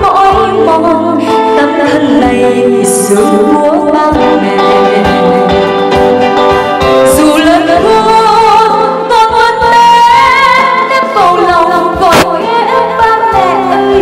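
A woman singing a Vietnamese song into a microphone over instrumental accompaniment, her voice wavering with vibrato on long held notes. There is a single sharp hit about twelve seconds in.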